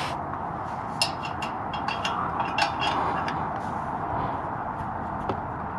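Small metal clicks and light scrapes as a spring and clip are worked into place by hand on a car's exhaust flap valve. The clicks are irregular and scattered over a steady background hiss.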